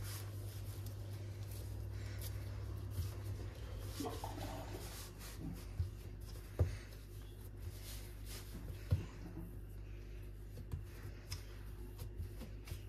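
Hands kneading soft shortcrust dough on a floured wooden worktop: quiet rubbing, pressing and squishing, with two sharper knocks partway through, over a steady low hum.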